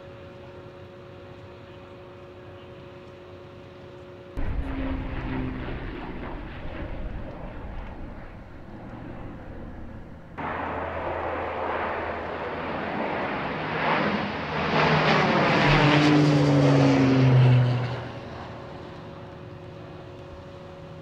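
Firefighting air tanker flying low overhead on a retardant drop. Its engines come in suddenly twice: first about four seconds in, then about ten seconds in. The second pass grows to its loudest with a falling pitch and dies away a few seconds before the end. A faint steady hum lies under the rest.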